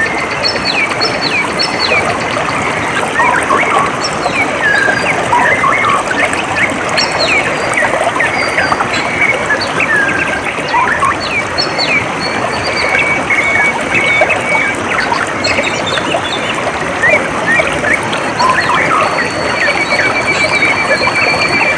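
Running water with a steady rush, and many small birds chirping over it, with short calls scattered throughout and a few longer rapid trills, one near the end.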